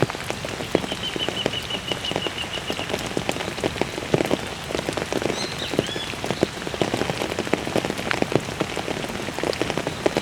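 Steady rain falling, with many sharp drop hits on a hard surface close by. A faint, rapid high trill sounds for about two seconds early, and a short high chirp about halfway through.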